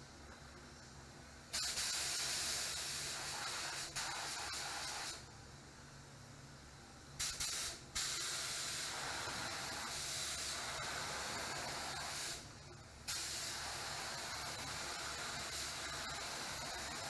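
Compressed-air paint spray gun hissing in long passes as the trigger is held and released, spraying paint. There are short breaks about 5 s, 7 s and 12.5 s in.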